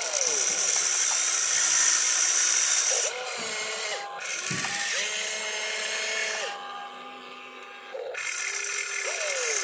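Radio-controlled excavator's electric motors whining as it digs, swings and lifts its boom, the whine starting and stopping and shifting in pitch with each movement.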